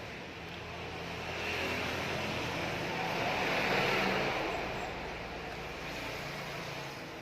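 A road vehicle passing by: a rushing noise swells to a peak about four seconds in and then fades.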